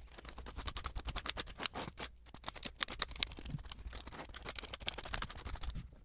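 Wet, soapy sponge wiped back and forth over a mechanical keyboard's bare switches with the keycaps off: a quick, scratchy run of rubbing strokes and small clicks.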